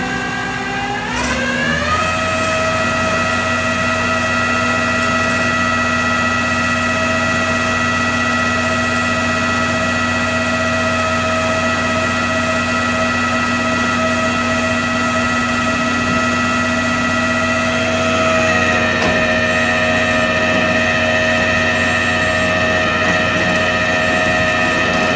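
Flatbed tow truck's hydraulic winch running, with the truck's engine powering it, as it pulls an SUV up the tilted bed: a steady mechanical whine that climbs in pitch a second or two in and then holds steady.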